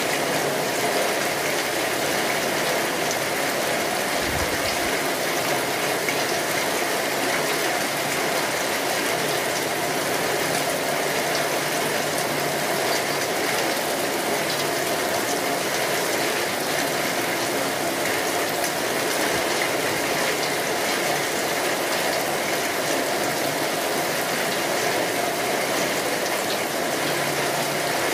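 Steady rain falling, a dense, even hiss that holds the same level throughout.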